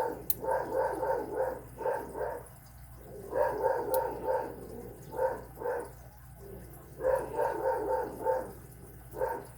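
Dog barking repeatedly in quick runs of short barks with brief pauses between them: alert barking, which the owner takes as a sign of a delivery or something going on outside.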